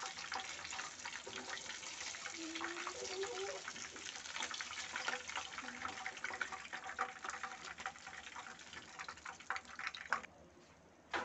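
Fish pieces deep-frying in hot mustard oil in a wok, the oil sizzling with a dense crackle of small pops while the pieces are lifted out. The sizzle stops abruptly about ten seconds in.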